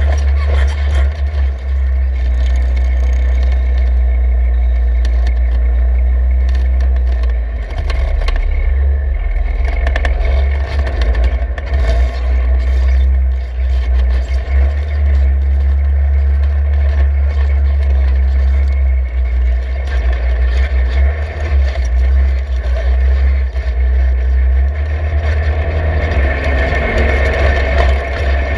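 Polaris RZR Turbo side-by-side driving on a rough dirt trail: a steady engine drone under a heavy low rumble, with gravel and rattling scrapes. The engine and trail noise grow louder near the end as it climbs a steep hill.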